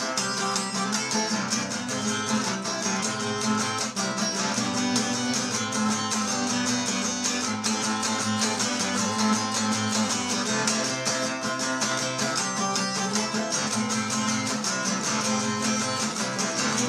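Acoustic guitar strumming an instrumental passage of a rock song, steady and continuous.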